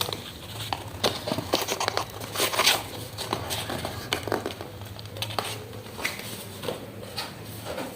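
Packaging crinkling and rustling by hand, with irregular bursts of crackles and small clicks, loudest a couple of seconds in, over a faint steady low hum.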